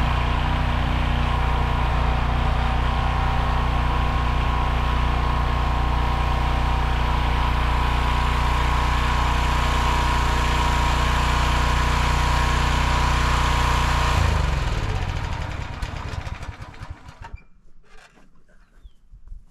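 The 15 hp engine of a towable backhoe running steadily, then shut off about fourteen seconds in and winding down to a stop, followed by faint clicks.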